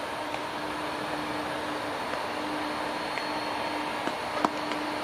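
Steady rushing noise of a jet airliner's engines, with a low steady hum underneath and a faint click about four and a half seconds in.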